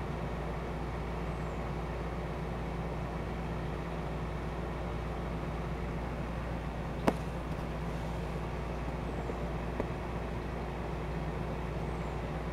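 Steady low background hum with an even hiss. A single sharp click comes about seven seconds in, and a fainter one near ten seconds.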